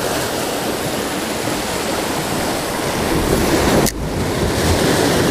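Surf washing over lava rocks along the shoreline, mixed with wind buffeting the microphone; a steady rush that drops out for an instant about four seconds in.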